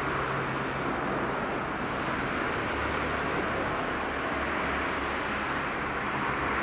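Boeing 767-300ER's jet engines running at taxi power as the freighter rolls past, a steady even rush with a faint low hum underneath.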